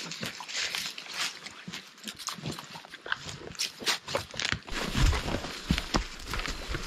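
Footsteps of several people walking through bush, crunching leaf litter and twigs and brushing through undergrowth in irregular steps. A low rumble joins about five seconds in.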